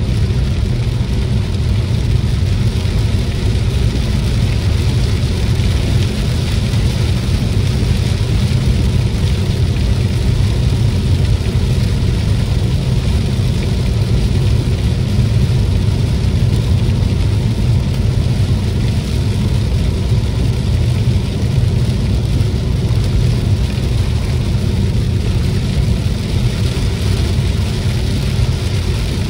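A car driving in heavy rain: a steady low road and engine rumble with a constant hiss of rain and tyres on the wet road.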